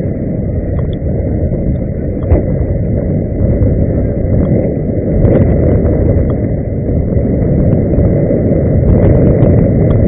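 Inline skates rolling over the road: a steady low rumble, with a few faint clicks and knocks on top.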